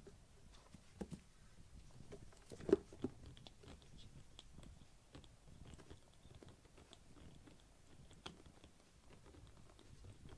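Kittens playing on a fleece blanket and a cardboard box: soft scattered taps, scrabbles and small clicks of paws and mouthing, with a louder thump about three seconds in.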